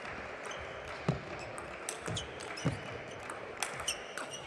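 Table tennis rally: the plastic ball clicking off the rackets and bouncing on the table at an uneven pace, over a steady hall background.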